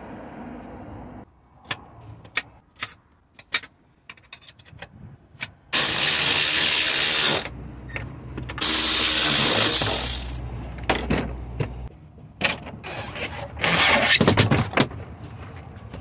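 Power tool run in short bursts of a second or two, driving in the 8 mm bolts of the battery hold-down, with sharp clicks and clinks of metal parts being handled in between.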